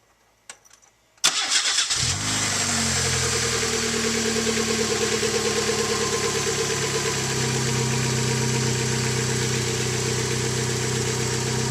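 1992 Mazda 323's four-cylinder engine started after a few faint clicks: it cranks briefly, catches just over a second in, and settles into a steady idle. This is the test start with a replacement alternator fitted.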